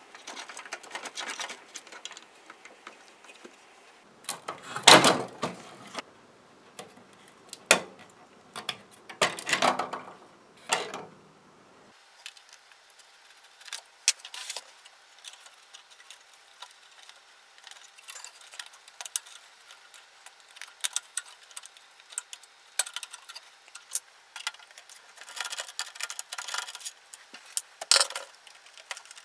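Scattered clicks, taps and rustles of hands working inside an opened AV receiver: plastic wire connectors being pried off circuit boards and wiring and metal chassis parts handled, with a few louder knocks about five seconds in and near the end.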